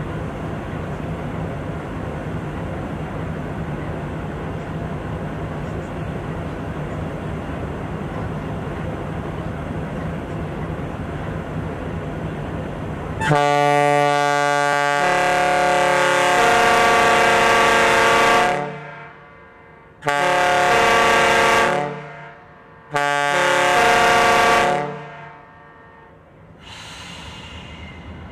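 A GE B30-7 diesel locomotive idling steadily, then its Kahlenberg boat horn sounds a multi-note chord three times: one long blast of about five seconds, then two shorter blasts of about two seconds each.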